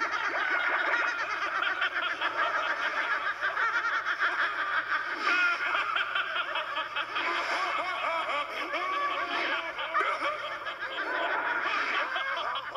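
Several cartoon voices laughing at once, a continuous stream of overlapping laughs and snickers that starts abruptly.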